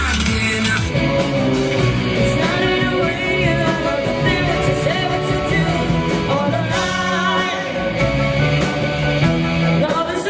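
Live rock band playing, a woman singing lead over electric guitar, bass guitar, drums and keyboards. About a second in, the music takes over from the tail of a dance track with a steady beat.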